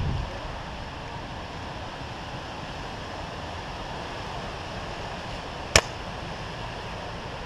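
Steady outdoor hiss, with a short rustle of movement at the start and one sharp click nearly six seconds in.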